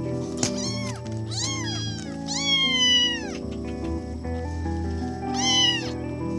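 Kittens meowing: about four high-pitched meows, the longest about a second, over background music.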